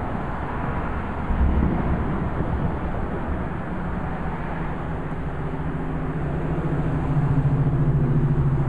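Steady low rumble of distant traffic, with one short low boom about a second and a half in and a vehicle engine's hum building over the last few seconds.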